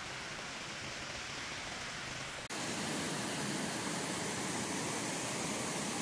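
Steady rushing noise, cutting abruptly about two and a half seconds in to a louder, fuller rush.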